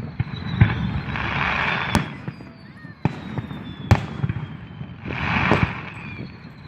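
Fireworks going off: several sharp bangs, swells of crackling hiss, and a thin high whistle that slowly falls in pitch.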